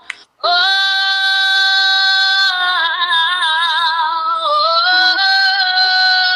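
A woman singing into a handheld karaoke microphone, without words. After a brief breath she holds one long, loud note, then slides into wavering vocal runs.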